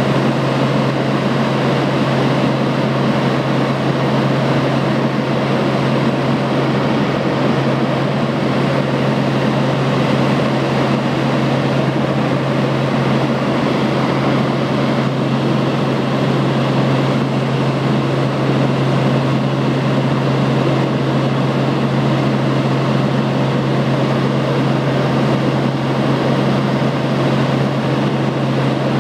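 Helicopter in flight: a loud, steady drone of engine and rotors with a strong low hum under an even rushing noise.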